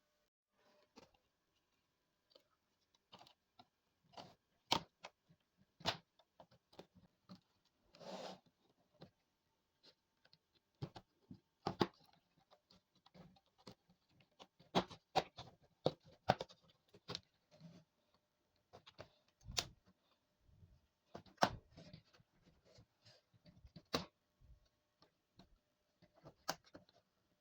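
Irregular sharp clicks and taps of a screwdriver and plastic on a laptop's bottom case as it is unscrewed and pried open, with a short scrape about 8 seconds in.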